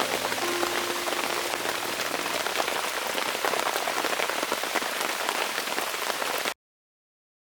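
Heavy rain falling: a dense, even hiss full of sharp individual drop hits, which cuts off suddenly about six and a half seconds in.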